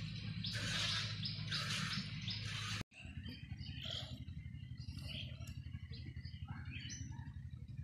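Hand milking of a cow into a plastic mug: short hissing spurts of milk about twice a second, which cut off abruptly about three seconds in. After that, birds chirp now and then over a low steady hum.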